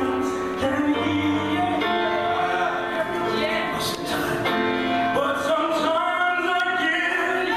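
Gospel song playing: a lead vocalist sings a held, bending melody over continuous instrumental backing.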